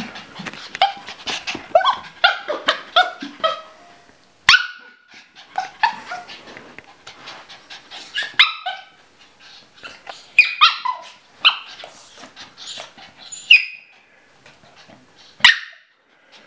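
Papillon barking in short, high-pitched yaps, several in quick runs with brief pauses between, from an excited small dog. Two sharp clicks stand out, one about a quarter of the way in and one near the end.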